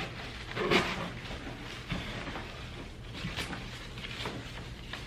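Soft, intermittent rustling and light clicks of artificial flower stems and leaves being handled and pushed into a floral arrangement.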